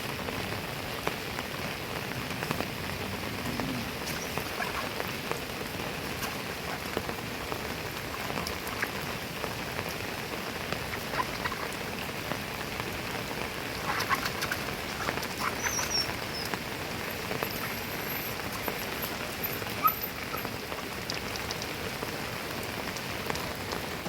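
Steady rain falling: an even hiss with scattered drip ticks.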